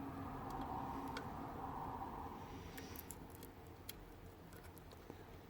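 Faint scraping, then a few small sharp clicks about three to four seconds in: a lock pick working the pins of a challenge lock under light tension.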